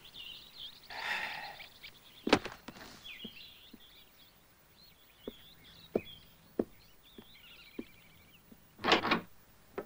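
Cartoon morning ambience: small birds chirping in short high calls, with scattered light knocks and a louder thud about nine seconds in.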